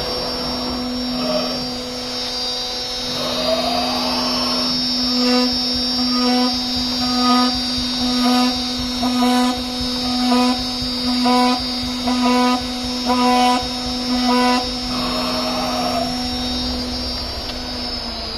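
Horizontal drilling spindle of a CNC router whining steadily while it drills a row of holes into the side of a wooden beam: about ten plunges, one a second, each a brief rise in the cutting sound. Near the end the spindle's whine begins to drop in pitch as it winds down.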